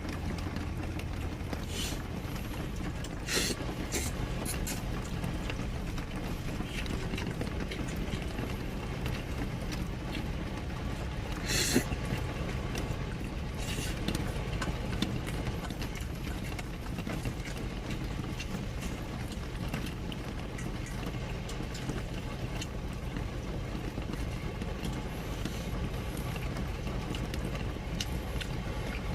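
Steady rain and wind noise against a small camper during a storm, with a few short sharp knocks, the loudest about twelve seconds in.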